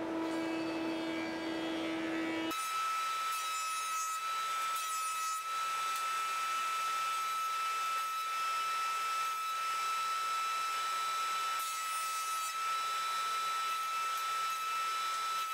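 Jointer (surface planer) of an SCM combination woodworking machine running with a steady hum. About two and a half seconds in this changes abruptly to a higher steady whine with a hiss of cutting that comes and goes as a board is fed over the cutterhead.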